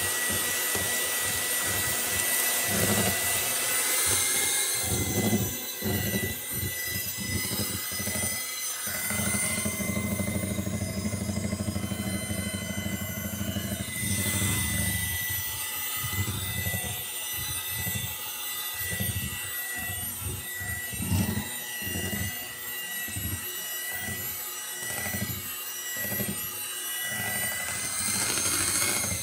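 Electric hand mixer running steadily with a constant motor whine, its beaters churning through banana bread batter as flour is beaten in. The lower churning sound shifts as the beaters move around the plastic bowl.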